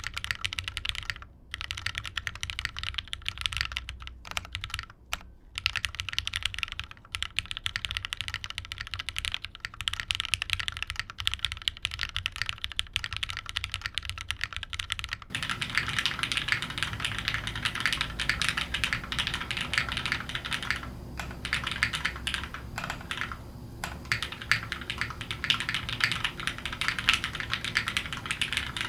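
Continuous typing on a plateless, top-mount mechanical keyboard with broken-in, lubed Cherry MX Black linear switches and GMK keycaps. About halfway through, the recording switches abruptly from a condenser mic off the desk to the camera's built-in mic, and the typing sounds fuller, with more low end.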